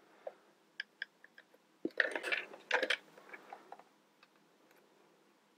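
Plastic toy building pieces clicking and rattling as they are handled and pushed together: a few light clicks, then a busier clatter about two seconds in, then it goes quiet.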